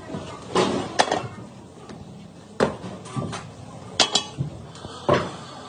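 Steel moulding flask clanking and knocking as it is lifted off a freshly poured casting in foundry sand: about six sharp, irregular metal clanks.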